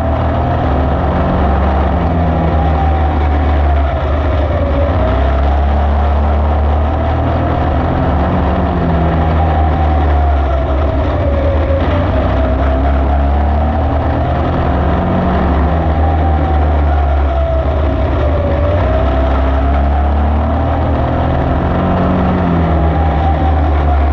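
Dirt-track race car engine at speed, heard from on board. The revs climb down each straight and drop into each turn, about every seven seconds, over a constant heavy low drone.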